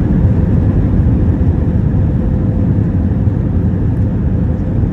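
Steady low noise of engines and airflow heard inside the cabin of an Airbus A320-200, with a faint steady hum under it.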